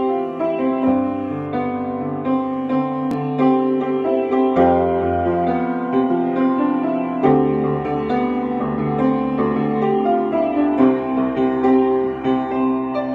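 Vose & Sons grand piano being played: chords over held bass notes, changing every second or two.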